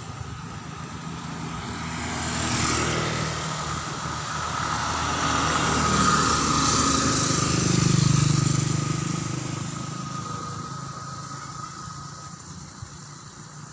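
A motorcycle passing along the road. Its engine grows louder to a peak about eight seconds in, then fades away. A smaller swell of vehicle noise comes a couple of seconds in.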